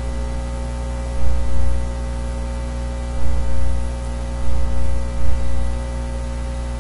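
Steady electrical mains hum and hiss in the recording, with thin steady tones above it. A low rumble swells up briefly four times.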